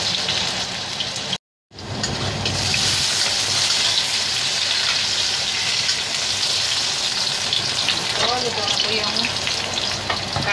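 Carrot and potato chunks sizzling steadily in hot oil in a stainless steel wok as they are stirred with a spatula. The sound cuts out briefly about a second and a half in.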